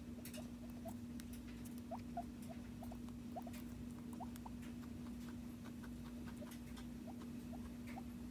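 Guinea pig nibbling at wooden chew sticks: faint, irregular little clicks of teeth on wood, with short soft rising squeaks now and then, over a steady low hum.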